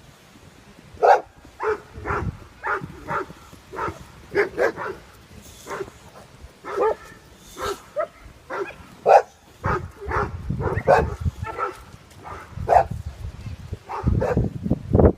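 A dog barking over and over in short barks, roughly two a second, as it works to drive horses in. A low rumble runs under the barks in the second half.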